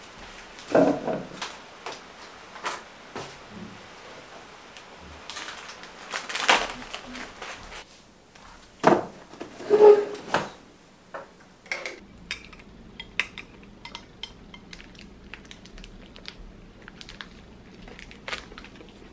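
Breakfast things handled on a table: knocks and clinks as a glass drink and a wrapped sandwich are set down, then a run of small light crinkling clicks as the sandwich's plastic wrapper is handled.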